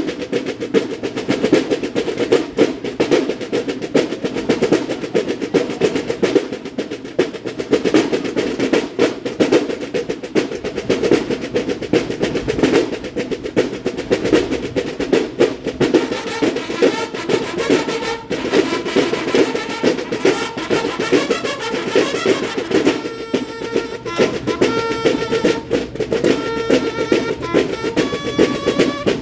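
Banda de guerra snare drums playing fast rolls and rhythmic patterns in a drum-corps routine. Bugle notes come in over the drums in the last several seconds.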